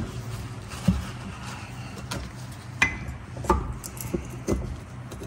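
A few scattered light metal knocks and clicks as a brake pad is worked and tapped down into a caliper bracket against its spring clip.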